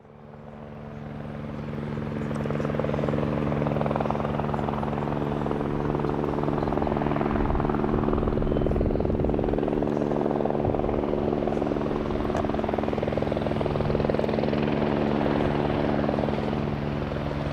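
A light helicopter flying, its rotor and engine making a steady drone that fades in over the first couple of seconds.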